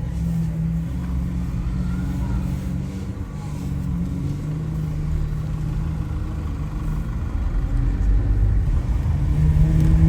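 Lamborghini Aventador SV Roadster's V12 idling through a Capristo exhaust: a steady low rumble that grows louder over the last couple of seconds.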